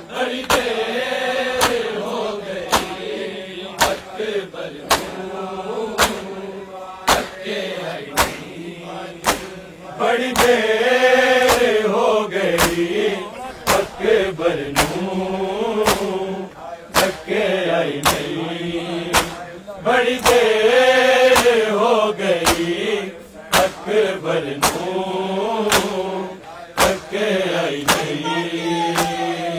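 Men chanting a mourning lament (noha) together, over a steady, even beat of sharp hand slaps on bare chests (matam). The chanting swells louder twice, about a third and two thirds of the way through.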